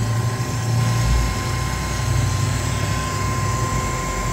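Alternator test bench running, its drive spinning the mounted alternator at a steady speed: a constant low hum with a thin, steady high whine over it.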